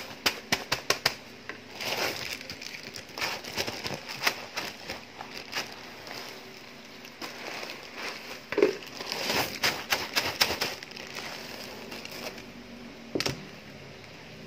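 A clear plastic bag packed with small yellow plastic pellets being squeezed and pressed by hand: the bag crinkles and the pellets click and rattle against each other in bursts of rapid clicks, with a quieter stretch in the middle and a last sharp click near the end.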